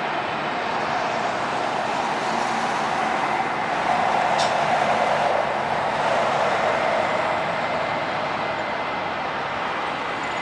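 Airbus A319's twin IAE V2500 turbofan engines at taxi idle as the airliner rolls past, a steady jet whine and rush that swells as it passes closest about four seconds in.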